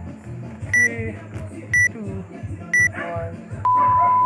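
Workout interval timer counting down: three short high beeps a second apart, then one long, lower beep near the end that marks zero and the start of the next interval.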